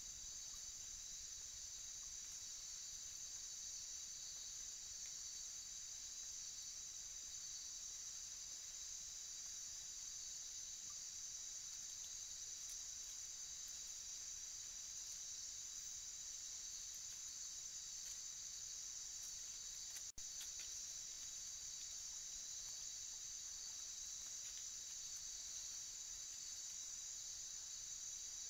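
Steady night-time insect chorus, a dense high-pitched trilling hum that carries on without a break. It cuts out for an instant about two-thirds of the way through.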